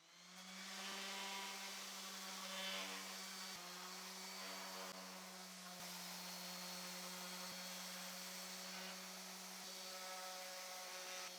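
Electric random orbit sander running steadily with 120-grit sandpaper on wood, a faint, even buzzing hum.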